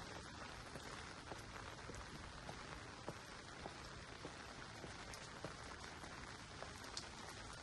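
Faint, steady hiss of outdoor ambience with scattered light ticks.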